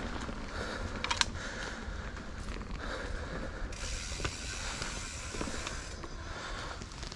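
Mountain bike ridden over a rough trail: the rear freehub ratchet ticking while coasting, with short knocks and rattles from the bike and an even hiss of tyres on dirt. A sharp knock comes about a second in.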